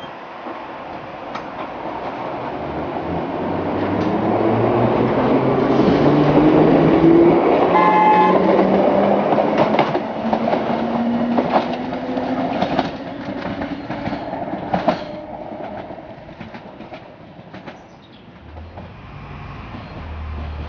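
1938 ex-London Underground tube stock electric train accelerating away, its traction motor whine climbing steadily in pitch, with a brief horn note about eight seconds in. The wheels then click over the rail joints as the train fades into the distance.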